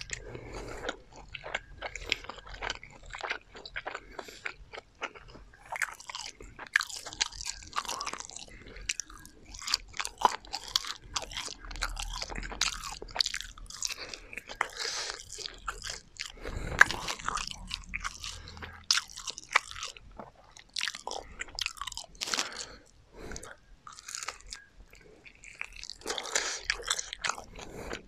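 Close-miked biting and chewing of crispy garlic fried chicken: irregular crunching and crackling of the fried coating throughout.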